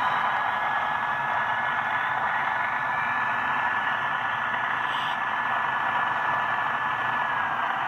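HO-scale ScaleTrains ET44AC model diesel locomotive running at full throttle while it strains against a pull meter in a pull test. It makes a steady, hiss-like running noise with a thin steady whine that dips slightly near the end.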